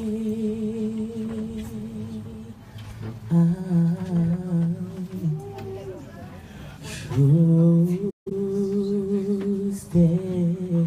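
A male vocalist singing long wordless held notes into a microphone, one pitch at a time, with slides and a wavering vibrato between them. The sound cuts out for an instant about eight seconds in.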